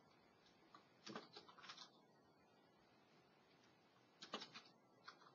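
Faint computer keyboard typing: two short bursts of keystrokes, about a second in and again near the end.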